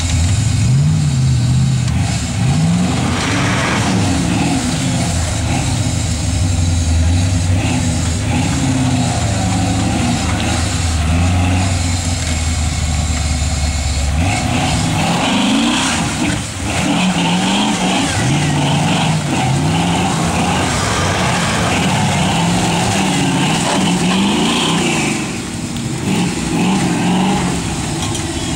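Engine of a caged Jeep rock crawler revving up and down in repeated bursts as it works its way up a muddy rock ledge. The deep low end drops away about halfway through, and a higher-pitched hiss of effort comes in.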